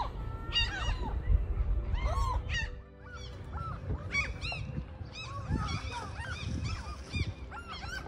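A flock of seagulls calling overhead: many short, arched cries in quick succession, often overlapping. A low rumble underlies the first three seconds.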